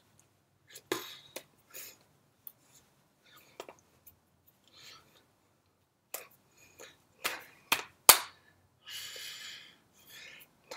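Irregular clicks, taps and smacks from a signer's hands and mouth. The loudest sharp click comes about eight seconds in, followed by a breathy rush of air about a second later.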